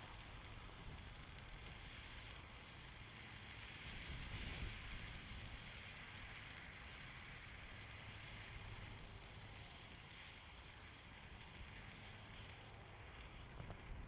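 13-inch sparkling wheel firework spinning, its burning spark drivers giving a steady hiss over a low wind rumble on the microphone. A few faint crackles come near the end as the wheel burns down.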